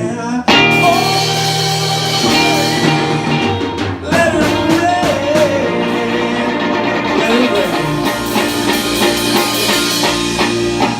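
Music: a band playing on after the last sung line of a slow soul song, with a gliding melody line over guitar and drums.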